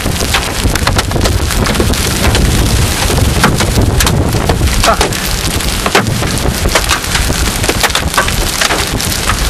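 Large hailstones, about golf-ball size, pelting the car and the gravel roadside: a dense clatter of sharp knocks over a steady rushing noise.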